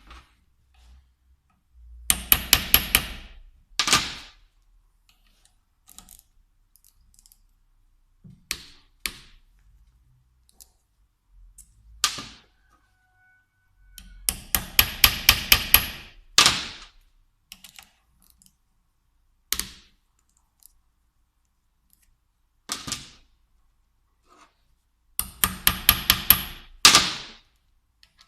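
Ratchet wrench clicking in quick runs as bolts are turned on a diesel injection pump, three long runs of rapid clicks each followed by a short one, with occasional single knocks of tools and parts between them.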